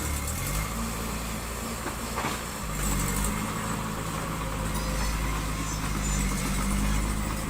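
Diesel engine of heavy construction machinery running steadily under work, its pitch dipping and picking back up in the first half-second, with a faint knock about two seconds in.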